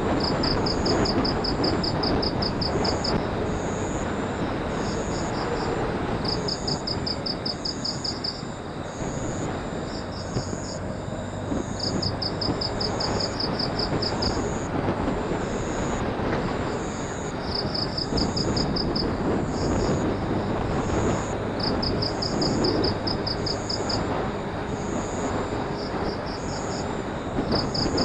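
Motorcycle riding at a steady speed: engine hum under road and wind noise. High, rapid trilling pulses come in short runs every few seconds throughout.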